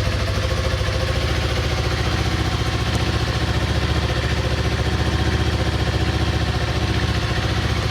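2016 Yamaha R3's parallel-twin engine idling steadily just after a cold start, warming up after sitting unstarted for a couple of weeks.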